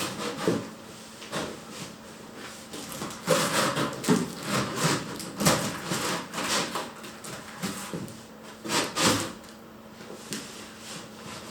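Irregular knocks and clatter of hard objects being handled and set down, a few louder knocks among them.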